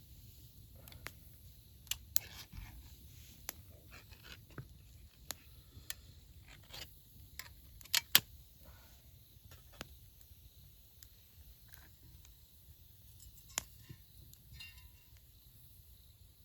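Scattered light clicks and taps of small hard objects, irregular, with two sharp clicks close together about eight seconds in, over a faint steady rumble.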